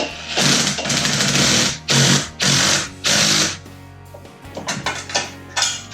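Cordless drill driving a bolt home in four bursts, the first about a second and a half long and three shorter ones after it, followed by a few light clicks. Background music plays underneath.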